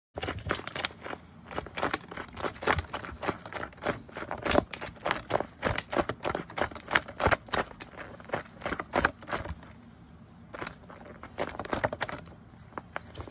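A cat bunny-kicking and biting a fabric fish kicker toy on a wooden floor: rapid, irregular scratching and rustling of claws on cloth and boards. It is busiest for the first nine seconds or so, then becomes sparser.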